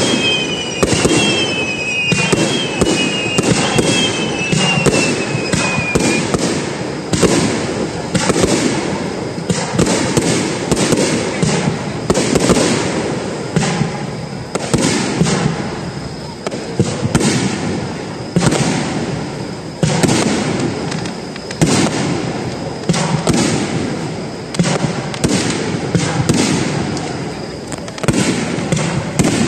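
Fireworks display going off in a rapid, continuous barrage of bangs and crackling. Several falling whistles overlap in the first six seconds or so.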